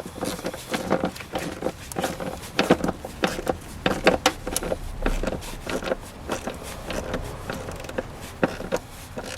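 Ratchet with a 13mm socket tightening a car battery's hold-down bolt: a run of irregular sharp clicks and knocks, several a second.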